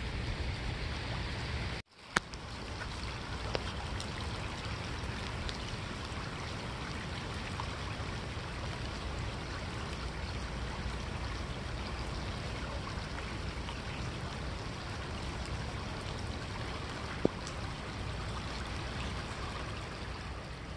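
Steady wash of rain and running floodwater, with no distinct tones, briefly cutting out about two seconds in; a couple of single sharp clicks stand out.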